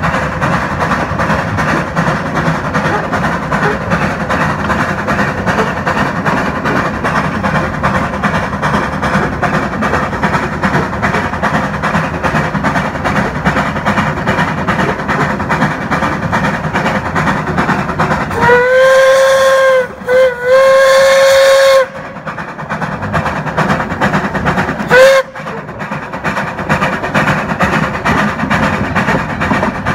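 Steam whistle of a 1901 NA class 2-6-2 narrow-gauge tank locomotive giving two long blasts and then a short one, most likely sounding for the road level crossing just ahead. Under it, the locomotive runs steadily, its exhaust and wheels on the rails heard from right behind the engine.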